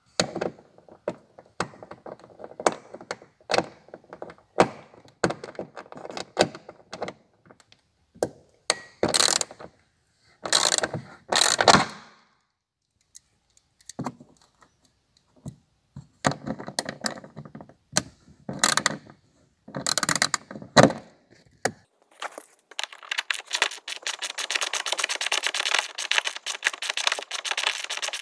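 Plastic interior trim panels and clips of a BMW E39's rear cabin being handled and pried: a string of knocks and clicks with bursts of scraping and rustling. About 22 seconds in, a fast, even clicking starts and keeps going.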